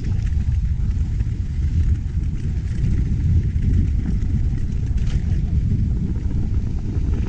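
Mountain bike rolling fast down a dirt and gravel trail: a steady low rumble of wind on the camera microphone and tyres on the dirt, with small rattles from the bike.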